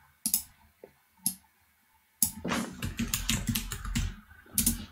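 Computer keyboard: a few single clicks, then fast typing from about two seconds in.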